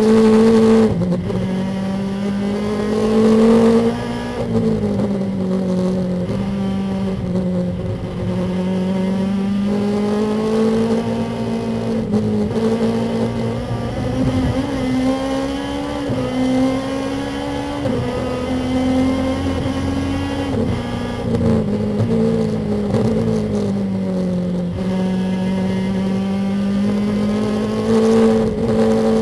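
Lexus IS race car's engine heard from inside the cockpit, running hard at high revs. The engine note climbs and falls repeatedly as the car accelerates, lifts and shifts, over road and wind noise.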